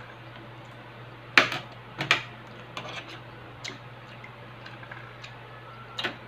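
Close-miked eating of stir-fried noodles with chopsticks: a handful of sharp clicks and smacks from chewing and from chopsticks against the plate, the loudest about one and a half seconds in and the last near the end, over a steady low hum.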